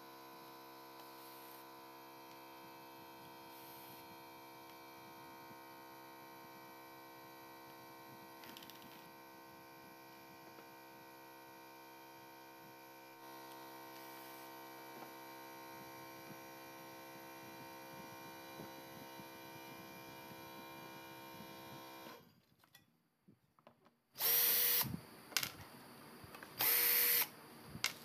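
A faint, steady hum of several held tones for most of the time, then a short near-silence, then two loud bursts of about a second each from a cordless drill-driver spinning near the end, the loudest sound here. The drill is being used to take apart a backpack brush cutter's engine.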